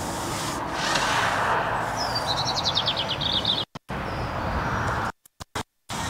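A small bird's short trill of rapid high notes, falling slightly in pitch, over a steady rushing background of traffic on a wet road. A brief rustle comes about a second in, and the sound cuts out completely twice near the end.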